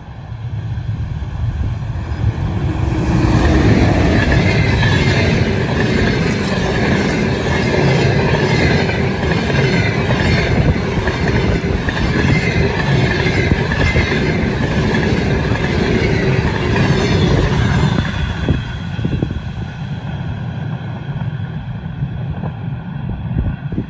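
Passenger train hauled by an EP2K electric locomotive passing at about 94 km/h: a loud rush of wheels and cars going by with clickety-clack. It builds over the first few seconds, holds until about 18 s in, then drops off as the train recedes.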